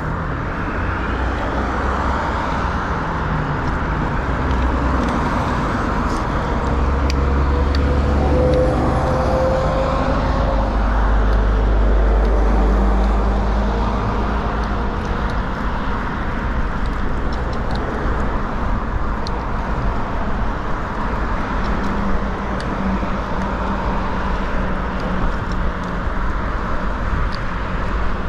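City road traffic heard from a bicycle: a steady noise of passing cars, with a heavier vehicle rumbling past a little before halfway.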